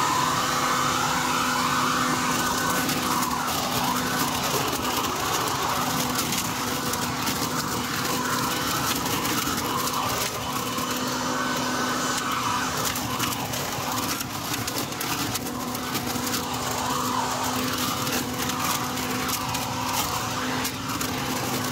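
Portland 12-amp electric leaf blower/vacuum/mulcher running in vacuum mode: a steady motor hum and rushing air, with a scatter of crackling clicks as dry leaves are sucked up the tube and through the impeller.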